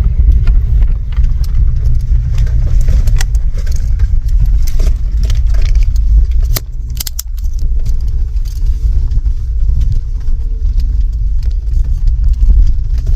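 Jeep driving along a trail, heard from inside the cabin: a loud, steady low rumble of engine and tyres with many short clicks and rattles over it.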